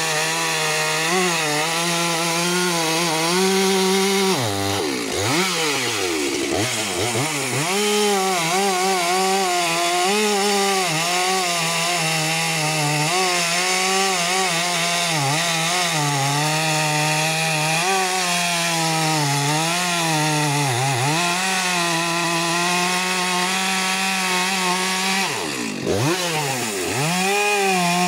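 Stihl MS 462 two-stroke chainsaw running at high revs with its chain cutting through a thick walnut trunk, the engine note wavering under the load of the cut. Twice the revs drop off sharply and climb back: about five seconds in and again near the end.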